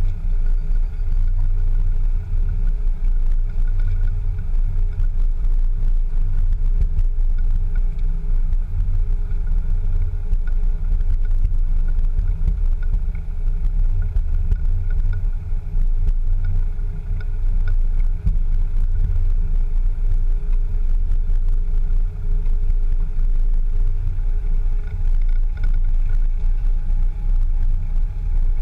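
Land Rover Discovery 2 driving over a rough dirt track, heard from a camera on the outside of the body beside the front wheel: a steady low rumble of engine and tyres.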